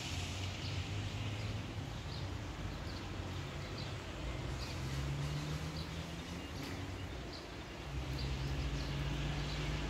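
Outdoor background with a steady low hum and faint short high chirps repeating irregularly, about once or twice a second.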